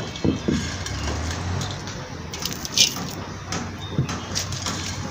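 Sand pouring in a thin stream onto a soil mix in a metal tub, a grainy hiss with scattered ticks of grit and a sharp click close to three seconds in.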